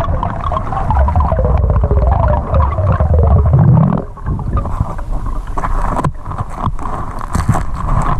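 Underwater noise through a camera's waterproof housing in a river: a loud, steady rumble of moving water, with a wavering whine over the first few seconds and a brief drop in level about four seconds in.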